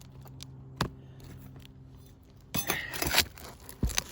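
Hand work on brittle asphalt roof shingles while nails are pried loose: a single sharp click about a second in, then a stretch of scraping and crackling with small clicks about two and a half seconds in, and a dull knock near the end. The crackling is the brittle shingle giving way as nail heads pop through it.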